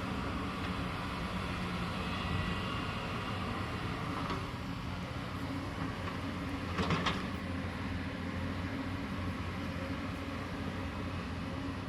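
Excavator's diesel engine running steadily, with a brief metallic clank about seven seconds in.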